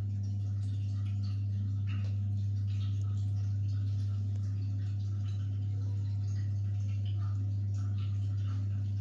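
Gas water boiler running with a steady low hum and faint scattered ticks; no banging in this stretch.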